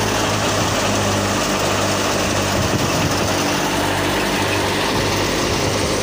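Super National wheat thresher running steadily while threshing wheat: a loud, even mechanical din with a constant low hum.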